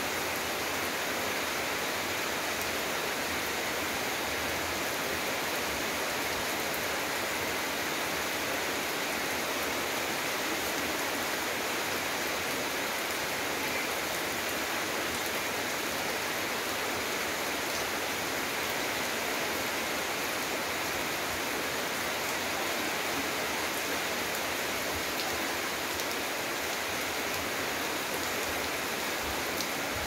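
Steady rain falling, an even hiss that does not let up.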